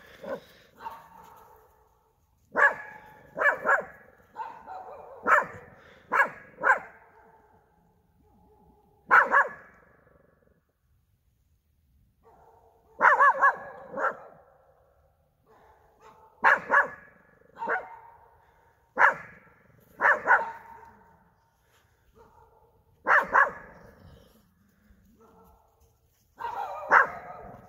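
A dog barking: loud single barks and short runs of two or three, with pauses of a few seconds between.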